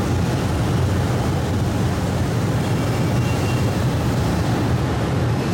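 Manila LRT Line 1 3G light rail train rolling slowly into a station platform: a steady low rumble of wheels and running gear, with a faint high tone about three seconds in.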